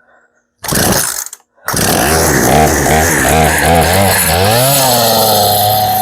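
Poulan P3314 two-stroke chainsaw started with a pull of the recoil cord, the engine catching about two seconds in after a carburettor and fuel-line tune-up. It runs at half throttle, its speed wavering up and down at first, then rising and settling to a steady run near the end.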